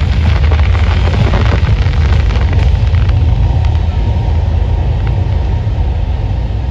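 Fireworks going off: a heavy low rumble of booms with dense crackling that thins out after about three seconds.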